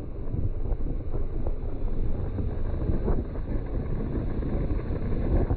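Wind buffeting the microphone: a steady, dense low rumble with a few faint ticks mixed in.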